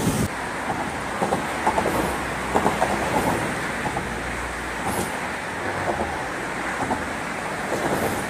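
Steady road traffic going past, a continuous hum of passing vehicles, heavier in the low end around the middle, with a few faint knocks.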